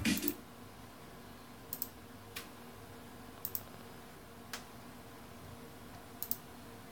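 Electronic music from a media player cuts off at the very start, leaving a quiet room. Computer mouse clicks then follow, five short sharp clicks about a second apart, some in quick pairs.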